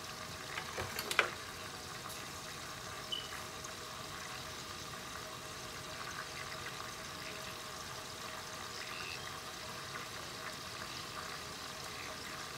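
Garlic-lemon butter sauce simmering in a stainless steel skillet: a steady fine bubbling sizzle, with a few small pops about a second in.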